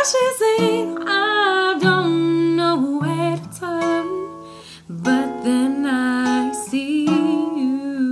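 Solo singer with acoustic guitar: sung phrases with vibrato on the held notes over plucked guitar chords, with a short break in the singing about four seconds in.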